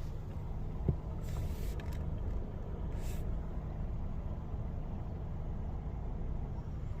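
Low steady rumble of the Jeep idling, with a sharp click about a second in and two brief hisses soon after.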